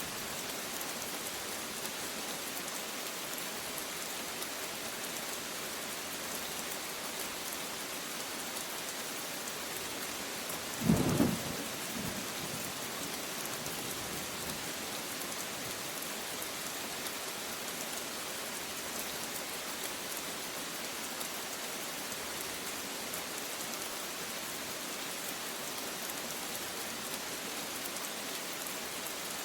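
Steady rain falling, with one brief, loud clap of thunder about a third of the way in.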